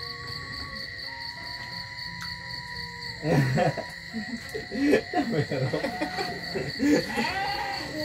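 Crickets chirping in a steady, high, pulsing trill. From about three seconds in, louder voices of people close by break in over it.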